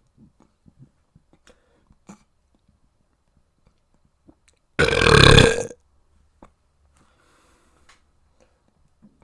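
A person lets out one loud burp lasting about a second, midway through; otherwise only faint small clicks.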